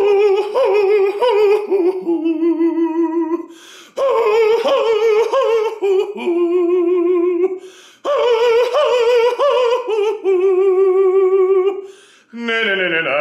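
An operatic baritone singing a vocal warm-up exercise in a high falsetto, soprano range. He sings the same pattern three times: a quick run of notes, then a held note with vibrato, with a short breath between repeats.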